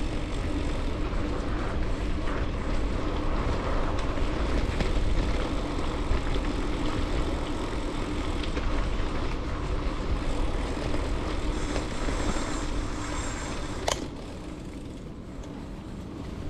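Wind rumbling on the microphone and mountain-bike tyres rolling over a dirt trail, with small rattles and clicks from the bike. A sharp click comes near the end, after which the sound is quieter.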